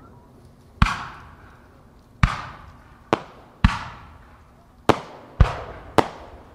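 Aerial firework shells bursting overhead: seven sharp booms at uneven intervals, each trailing off in an echo.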